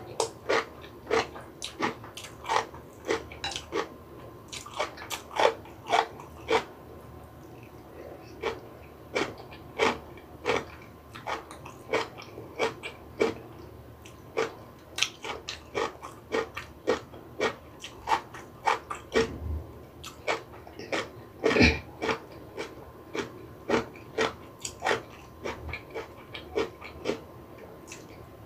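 Close-miked chewing of crisp food, with irregular sharp crunches about two a second. One crunch about three quarters of the way through is louder than the rest.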